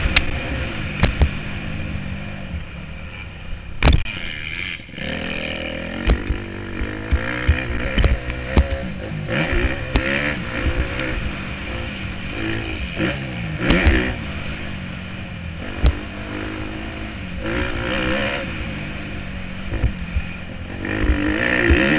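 Motocross bike engine revving up and falling back again and again as it is ridden hard around a dirt track, heard from a helmet-mounted camera. Sharp knocks break in now and then.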